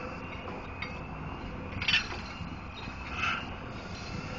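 Barge-mounted crane working: a low engine rumble under a faint whine that slowly rises in pitch, with two short metallic squeals or clanks, the louder about two seconds in and another about a second and a half later.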